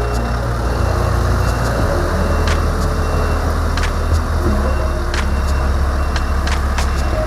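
Scania 770S's V8 diesel on its stock exhaust running under way, a deep steady note that shifts pitch a few times, with sharp clicks every second or so.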